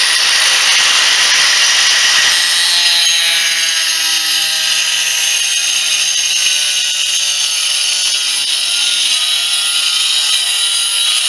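Angle grinder running with a freshly resharpened hard-metal-tipped wood-cutting disc, cutting through thin plywood: a loud, steady motor whine over continuous cutting noise. The resharpened disc is cutting much better than when it was dull.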